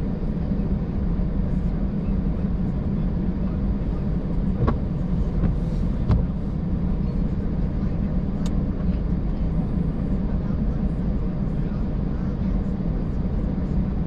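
Steady low rumble of a car driving slowly on a wet road, heard from inside the cabin: engine and tyre noise, with a few faint clicks.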